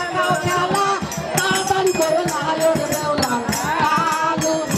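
A man singing a snake charmer's folk song over the beat of a two-headed barrel drum.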